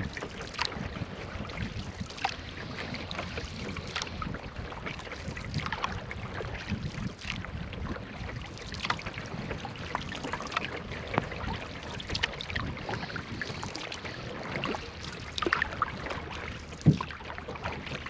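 Wooden canoe paddle strokes dipping and pulling through calm river water, with small splashes and drips. A low rumble of wind runs on the microphone, and there is a sharp knock near the end.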